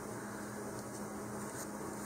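Steady low electrical hum with an even hiss: room tone, with no distinct sanding strokes or taps.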